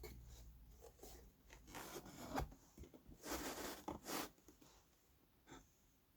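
Faint handling noises: several short rubbing and scraping sounds of something being moved or handled, then a single light click.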